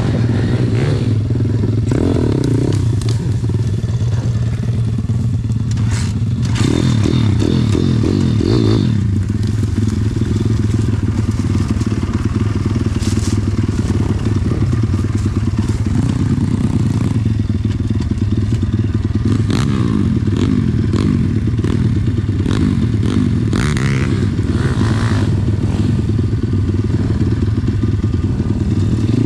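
Pit bike's small single-cylinder four-stroke engine running at low, steady revs, with a few short rises in revs. Occasional knocks come over the engine.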